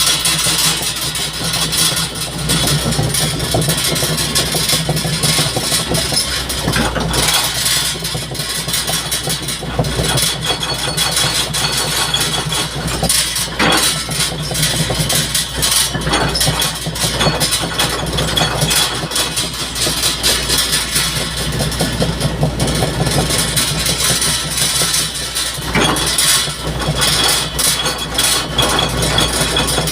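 An engine running steadily, a constant low hum under a lot of hiss, with no pauses.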